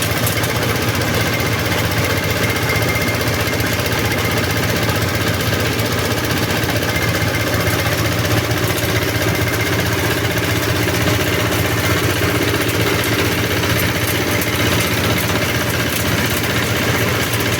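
Multipurpose chopper-grinder machine running steadily with a loud, even mechanical drone.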